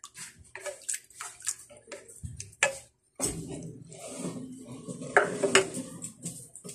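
A ladle stirring through creamy sauce in a pan, with irregular clicks and scrapes of the ladle against the pan and a brief break about three seconds in.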